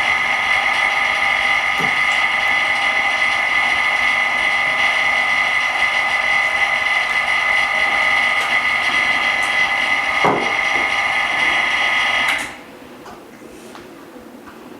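Small electric motor whining steadily at a high pitch, then cutting off suddenly about twelve seconds in.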